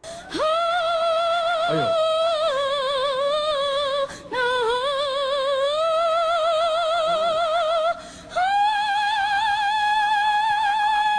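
A woman singing long held notes in an operatic style, with a wide, fast vibrato, in three phrases; the last note is higher.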